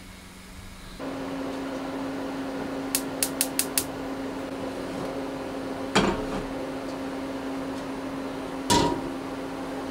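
A gas cooktop's igniter clicks five times in quick succession as a burner is lit, over a steady hum. Later come two metal clunks as a stainless kettle is moved on the cooktop's metal grates.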